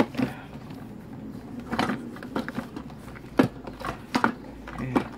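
Plastic clicks and knocks from an old Daewoong Morningcom DWR-202M pressure rice cooker as its lid-release button is pressed and its lid pushed and handled, a handful of separate knocks; the lid stays stuck shut.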